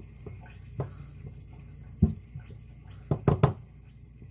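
Spatula knocking and scraping against loaf pans as sticky bread dough is smoothed into them: a few sharp knocks, one about two seconds in and three in quick succession a little after three seconds.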